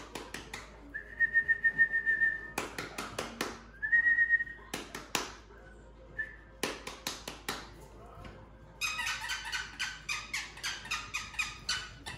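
A person calling a puppy with bursts of rapid kissing clicks and a short, steady whistle, twice. Near the end comes a quicker run of squeaky kissing sounds.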